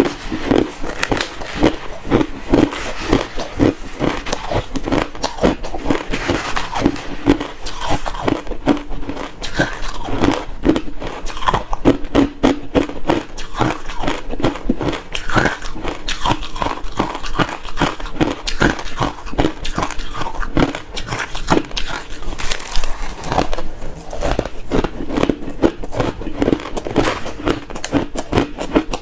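Refrozen crushed ice being chewed close to the microphone: dense, continuous crunching with many irregular cracks each second.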